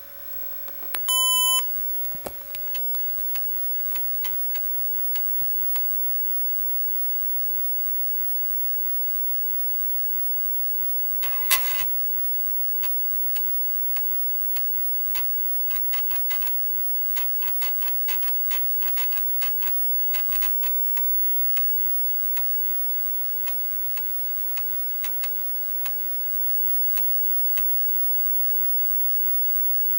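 Sanyo MBC-670 computer starting up: one short beep from its speaker about a second in, then a run of irregular clicks and ticks, typical of a disk drive seeking and reading. A steady hum runs underneath.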